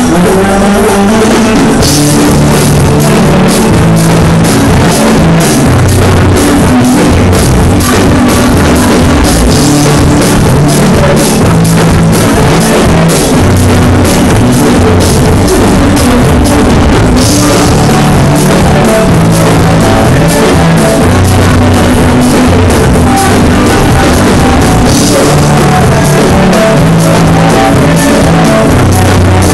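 Loud live band music with a steady drum-kit beat, played for dancing.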